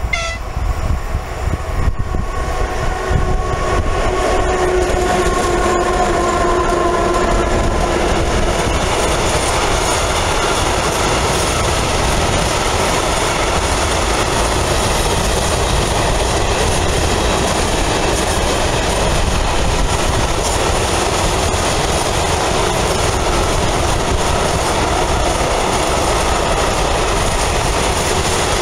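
Freight train hauled by two ZSSK Cargo class 131 twin-unit electric locomotives passing close by. For the first several seconds a steady tone slowly falls in pitch as the locomotives go past. Then a long string of open freight wagons rolls by with a steady noise of wheels on rail.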